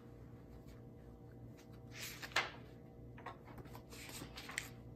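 Paper notebook pages being leafed through: a few soft, short rustles, the clearest about two seconds in and another near the end.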